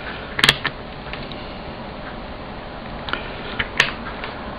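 A few short, sharp clicks and taps from a Mercury digital multimeter and its probe leads being handled as its range dial is worked, the loudest about half a second in and again a little before the end.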